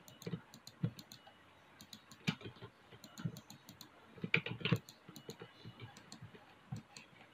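Faint, irregular clicking of a computer keyboard and mouse, with a quick cluster of louder keystrokes about four and a half seconds in.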